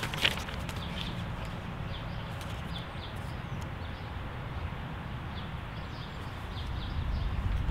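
Outdoor ambience: a steady low rumble with faint, scattered bird chirps, and a single click just after the start. The rumble grows louder near the end.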